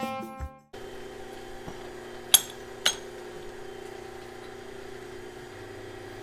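Background music cutting off under a second in, then the steady hum of a running milling machine, with two sharp metallic clinks about two and a half and three seconds in.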